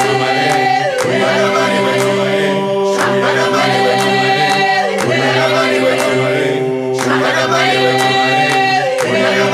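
Background music: a choir singing in African a cappella style, sustained chords changing every couple of seconds over a light steady beat of about two clicks a second.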